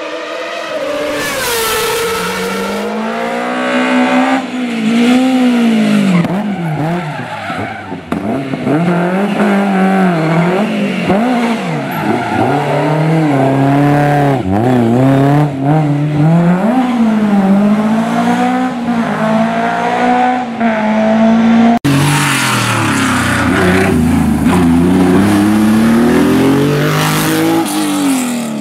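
Historic rally car engines driven hard, revs rising and falling again and again through gear changes. About 22 seconds in the sound breaks off abruptly and another car's engine takes over.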